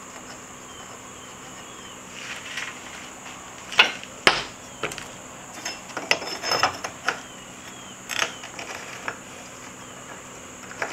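Steel armor scales being laid and shifted on a metal workbench: a scatter of sharp metal clinks and light knocks of plate against plate, starting about two seconds in and loudest near the middle, over a faint steady high tone.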